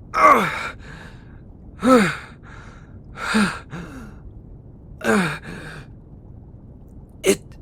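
A man's pained gasps and groans, five in all, each sliding down in pitch with a breathy tail, the last one short and sharp near the end. They are the cries of someone being shocked through his cuffs.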